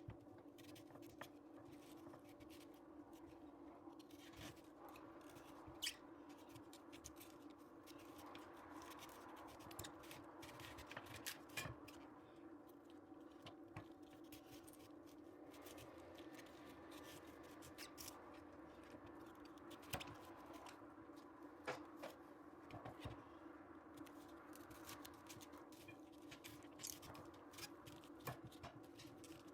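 Faint, irregular crisp crunches and clicks of a red cabbage being cut up, over a steady low hum.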